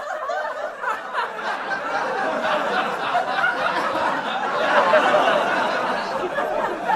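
Crowd chatter and laughter: many voices overlapping at once, with no single speaker standing out, growing a little louder in the second half.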